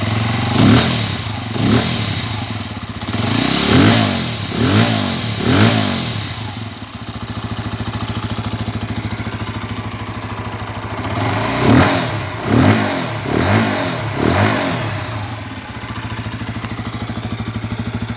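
Keeway RKF motorcycle's single-cylinder engine idling, blipped up in quick throttle revs: a run of about five revs in the first six seconds, steady idle, then about four more revs around twelve to fifteen seconds in before settling back to idle.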